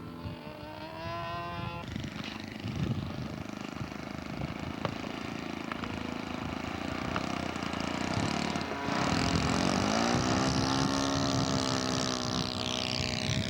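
Model airplane engine running. About nine seconds in it rises in pitch and holds a steady high-revving note.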